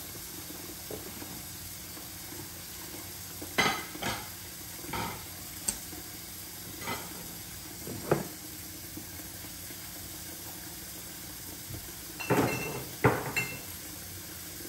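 Scattered clinks and knocks of a pot and kitchen utensils being handled: a few spread through the middle, then a quick cluster near the end, over a steady background hiss.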